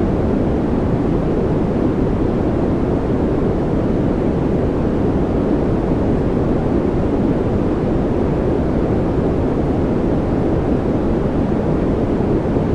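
Steady, unbroken noise played as a relaxation and focus soundscape: a deep, muffled rush with little hiss on top, unchanging in level throughout.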